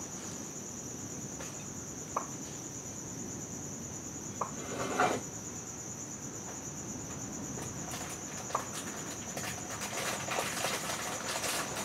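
Night insects trilling steadily at a high pitch, with a few short, sharp clicks and knocks scattered over it, the loudest about five seconds in.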